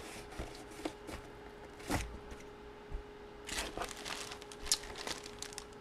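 Sealed trading-card box being opened and handled: scattered light clicks and rustles of cardboard and plastic packaging, busiest about three and a half seconds in, over a faint steady hum.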